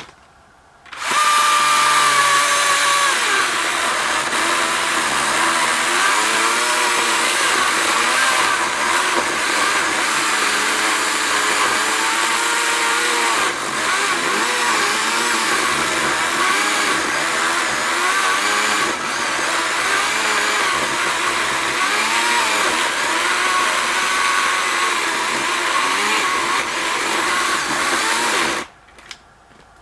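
Husqvarna 120i battery-powered chainsaw sawing into wood, its electric motor whine sagging and recovering in pitch as the chain bogs under load. It starts abruptly about a second in and cuts off abruptly near the end.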